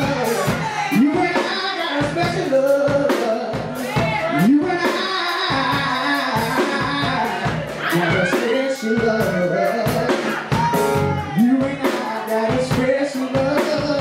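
Live band performance: a man sings lead into a microphone over a band with a steady drum-kit beat.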